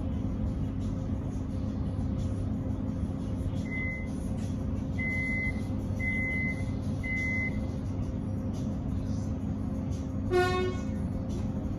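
X'Trapolis electric train standing at a platform, heard from inside the carriage: a steady low hum from its onboard equipment, with four high electronic beeps in the middle, the first one short. About ten seconds in comes a single short, buzzy toot.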